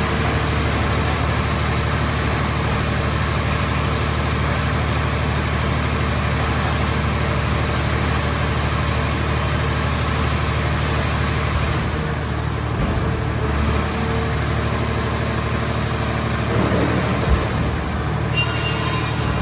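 Car-scrap baler machine's engine and hydraulic power unit running steadily, with a low hum. One brief sharp knock about 17 seconds in.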